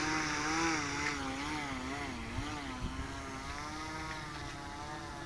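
Propeller and motor of a 46-size electric RC flying wing, an E-flite Power 46 brushless motor, running on the ground as a steady buzzing whine. The pitch wobbles up and down with throttle blips for about three seconds, then holds steadier.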